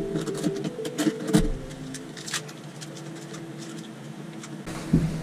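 Small plastic tackle box and its contents clattering as hooks, jig heads and baits are handled and set into its compartments: a run of small sharp clicks and rattles, with a dull thump near the end.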